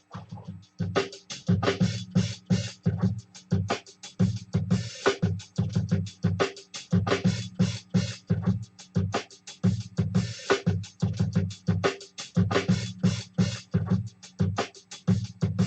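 Electronic synth and drum-machine pattern played through PC speakers and a subwoofer: a fast, steady stream of short, clicky notes over a pulsing bass, picking up about a second in.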